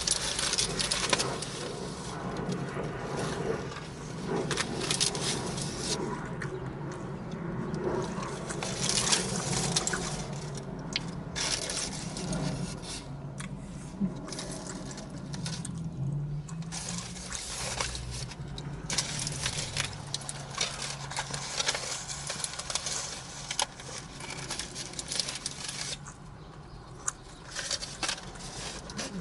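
A person chewing a Philly cheesesteak sandwich close to the microphone, with irregular clicks and smacks throughout, over a steady low hum.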